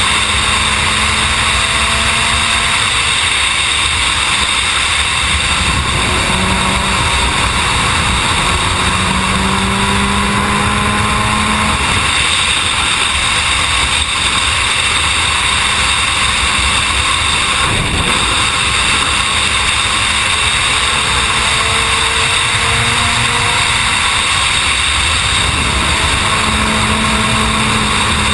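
Suzuki sport motorcycle ridden at high speed on a motorway, about 156 km/h: a steady rush of wind noise with the engine running underneath, its note rising gently several times as the bike pulls.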